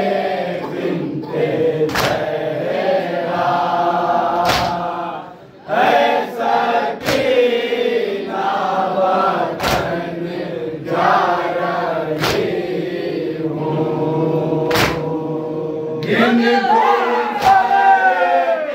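A group of men chanting an Urdu noha (Shia lament) together in long held lines. A sharp unison slap of chest-beating (matam) lands about every two and a half seconds, seven times.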